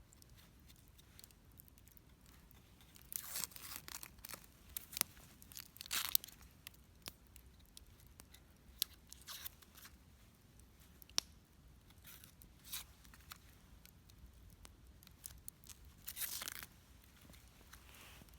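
Faint handling noises: short bursts of tearing and rustling with scattered sharp clicks, the longest bursts about three seconds in, around six seconds and near the end.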